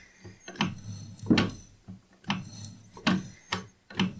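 A slotting tool in a milling machine's quill, worked up and down by hand, shaving a keyway into a cast aluminium hand wheel. It makes a run of short, sharp scraping strokes, roughly two a second and unevenly spaced: the shaper-like noise of light 0.05 mm cuts.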